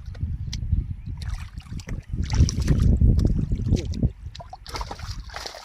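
Water sloshing and splashing as someone works through shallow water by hand. A heavy low rumble is loudest in the middle, and a brighter splashing hiss sets in near the end.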